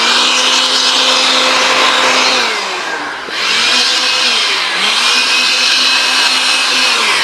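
Small handheld cordless blower running at full speed to blow sawdust off a miter saw, a steady whine. It spins up at the start, eases off and revs back up twice, and winds down near the end.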